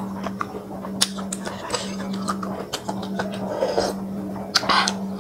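Eating sounds: chopsticks and a spoon clicking sharply against a glass bowl of broth, with chewing and heavy breathing, over a steady low hum.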